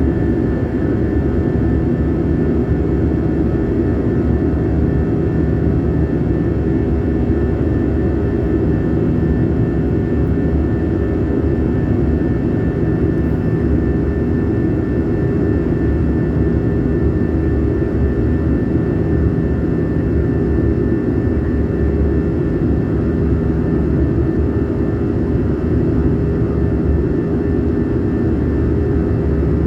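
Airliner's jet engines and airflow running steadily in flight, heard from inside the passenger cabin, with a steady low rumble and a few constant hums.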